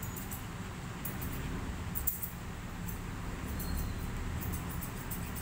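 Grooming scissors snipping at a Pomeranian's coat in quick, irregular clicks, over a steady low hum.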